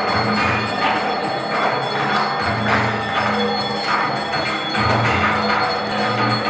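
Temple bells rung rapidly and continuously for the aarti, ringing over music with a low beat that swells about once a second.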